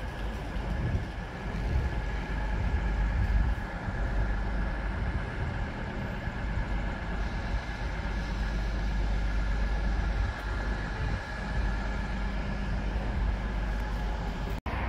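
Railway station platform ambience: a steady low rumble with a faint, steady high whine running through it. The sound drops out for an instant near the end.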